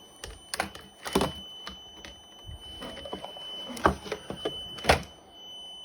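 CNC controller's alarm buzzer sounding a steady high-pitched tone while the emergency stop is engaged. Several sharp clicks and knocks come over it, the loudest about four and five seconds in.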